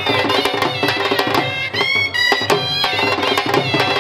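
Two shehnais, double-reed pipes with flared bells, playing a bending, ornamented melody together over steady dhol drum strokes.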